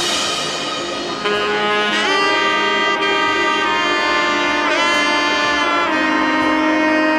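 Background music: a melody of long held notes with a few sliding changes of pitch.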